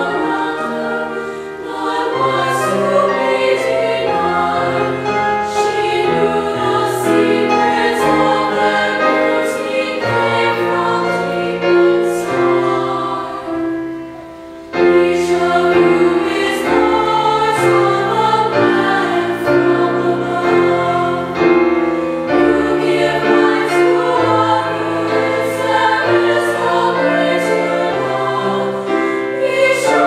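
Women's choir singing with piano accompaniment, sustained chords over low held piano notes. About halfway through the sound fades briefly, then the choir comes back in suddenly and loudly.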